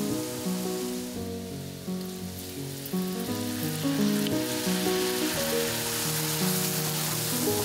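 Oil sizzling as food fries in a pan, dipping for a moment and then growing stronger a few seconds in, under background music with a melody of held notes.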